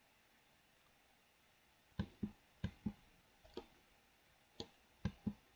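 Near silence for about two seconds, then about eight sharp clicks of a computer keyboard, mostly in quick pairs: the spacebar being pressed and released several times.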